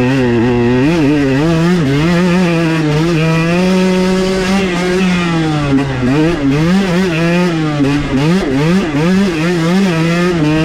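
Carbureted two-stroke single-cylinder engine of a KTM 125 XC dirt bike, revving up and down over and over as the throttle is worked, with a steadier stretch at a held pitch about three to five seconds in.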